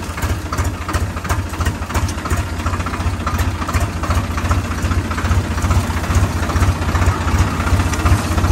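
Farm tractor's diesel engine running steadily at low speed as the tractor drives along, heard from the driver's seat: a fast, even low chugging with clatter on top.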